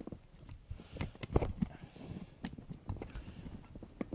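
Irregular small clicks and knocks of a screwdriver and hands working the plastic body of a spring-powered airsoft pistol, prying its halves apart, with a cluster of sharper knocks about a second and a half in.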